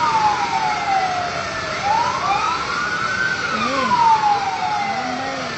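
Fire engine siren wailing, its pitch rising and falling slowly about every four seconds, with a second wail slightly out of step with the first.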